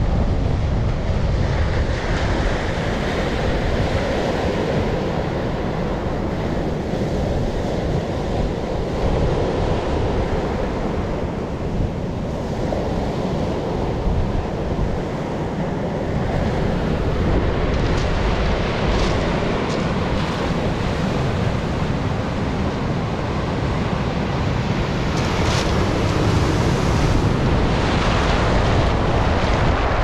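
Sea surf breaking and washing up a pebble beach in a steady rush, with wind buffeting the microphone.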